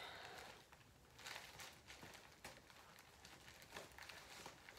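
Faint, occasional rustles of a fabric boot bag being handled, a few short ones with near silence between.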